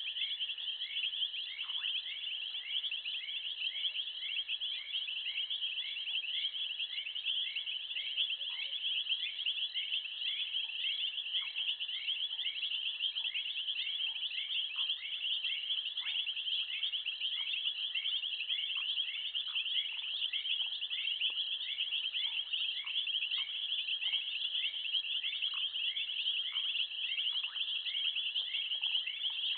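Steady high-pitched chorus of insects chirping in the bush, a rapid trill overlaid by a repeated chirp about twice a second.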